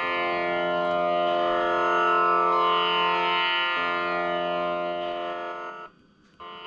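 Raagini electronic tanpura playing its drone: a steady, plucked-string-like hum of held notes, re-struck about four seconds in. The sound cuts out briefly near the end and then comes back.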